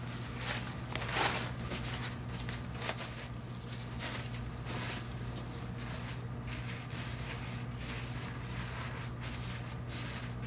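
Crinkling and rustling of a disposable plastic-backed underpad (chux pad) being unfolded and smoothed onto a hospital bed sheet, in irregular bursts that are loudest about a second in, over a steady low hum.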